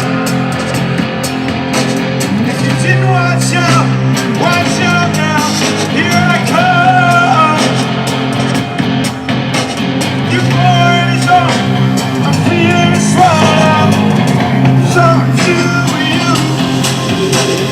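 Live electronic rock band playing loudly through a PA, with a sung vocal line over bass, guitar and drums.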